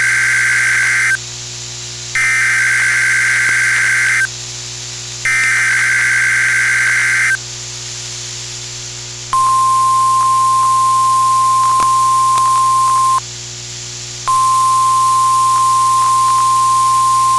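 NOAA Weather Radio emergency alert: three bursts of the screechy digital SAME header data, each about two seconds long, then the single steady high-pitched warning alarm tone, which cuts out for about a second partway through. These tones announce an incoming alert, here a severe thunderstorm watch.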